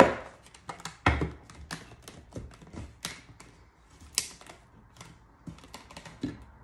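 A white wooden sign frame knocking and tapping against a tabletop as it is pressed together and turned over. There is a sharp knock at the start and another about a second in, then lighter, scattered taps and clicks.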